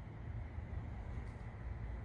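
Steady low rumble of background room noise, with no distinct event.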